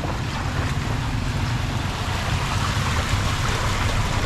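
Steady rushing of water with a low rumble underneath, as in floodwater moving or being churned.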